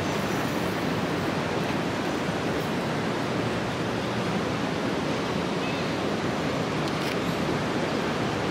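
Steady, even hiss of rain falling, with no breaks or rhythm.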